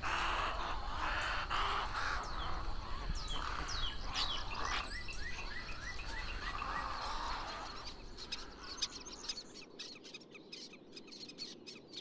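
A roost of herons and egrets squawking in the treetops, a dense chorus of harsh calls mixed with short falling notes. About eight seconds in it thins out to quieter scattered clicks.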